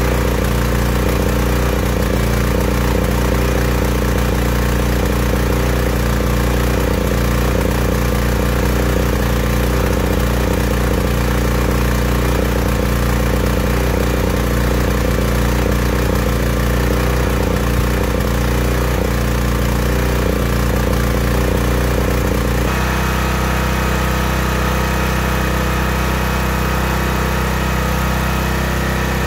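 Generator's single-cylinder OHV engine running rich, too much fuel for the air, with a full sound and uneven sputtering through its steady run. About 22 seconds in, the sound changes abruptly to a steadier, more even run.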